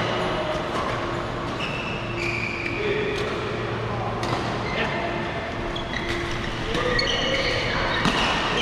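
Badminton racket hits on shuttlecocks from several courts, sharp scattered pops, mixed with short high squeaks of court shoes on the floor mats, echoing in a large hall.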